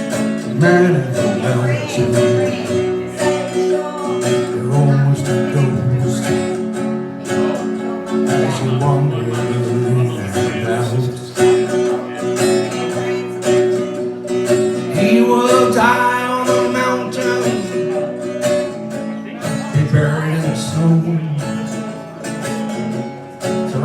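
Acoustic guitar music in a country style, strummed and picked, played as an instrumental break between verses of a song.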